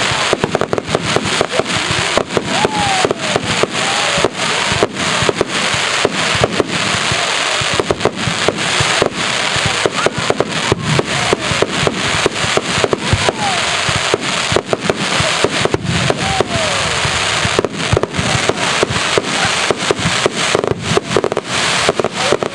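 Aerial fireworks display: a dense, continuous barrage of shell bursts, bangs following one another several times a second over a constant crackle.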